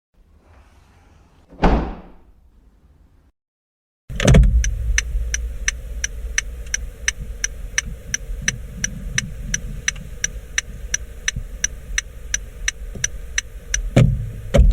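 Inside a car: a single sharp thud about two seconds in, like a door shutting. After a short silence the engine is heard running, with evenly spaced clicks about two and a half times a second, the tick of a turn-signal indicator, and a dull thump near the end.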